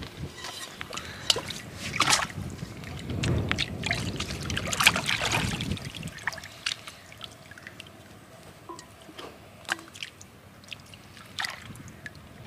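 Shallow seawater splashing and trickling as a gutted sea cucumber is rinsed and turned over by hand in it, with small clicks and taps. The splashing is busiest in the first half and fades to lighter dribbles and clicks.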